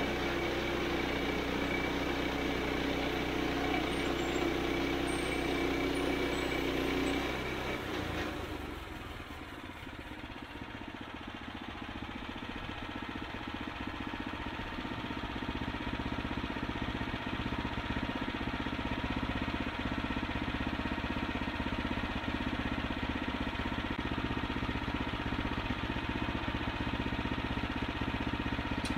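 Kohler engine of a Woodland Mills bandsaw mill running steadily at high speed. About seven seconds in the sound drops and changes to a quieter, steady engine note that runs on.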